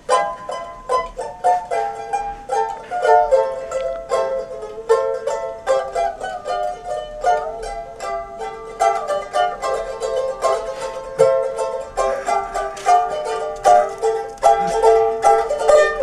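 Music: a plucked string instrument playing a quick, busy tune of fast-picked notes.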